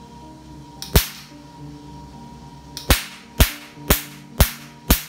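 Pico laser handpiece set to 1064 nm firing pulses onto black test paper. Each shot makes a sharp snap: one single shot about a second in, then from about three seconds a regular run at about two shots a second, the 2 Hz repetition rate set on the machine.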